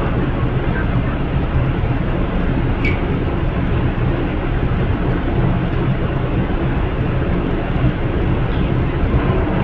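Steady, loud drone of a stopped Amtrak passenger train idling at the platform, its diesel locomotives running to supply power to the cars, with a constant low hum throughout.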